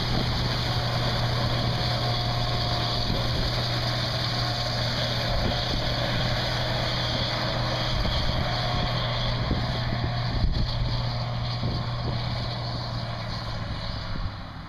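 Case IH 2588 combine running steadily while harvesting corn: an even engine drone with a constant low hum under the rush of the machinery, and one brief knock about ten seconds in.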